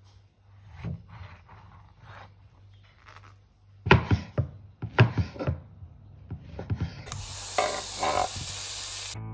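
Kitchen knife cutting through a nectarine on a wooden cutting board: soft slicing strokes, then several sharp knocks of the blade hitting the board about four seconds in. Near the end the slices are scraped off the board into a frying pan, with a steady hiss of sizzling.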